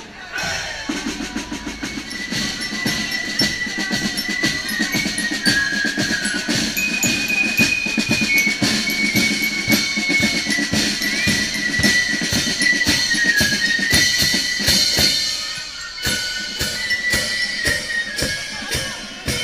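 Fife-and-drum corps playing a march: fifes carry a high, stepping melody over snare drums beating a steady marching rhythm.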